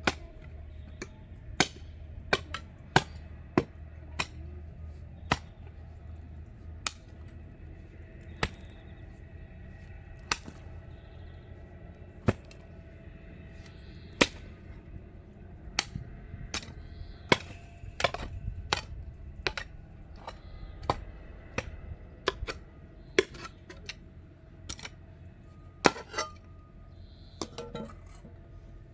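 Irregular sharp knocks and clinks of stone being worked and set into a stone wall, some forty strikes at uneven spacing, with faint music underneath.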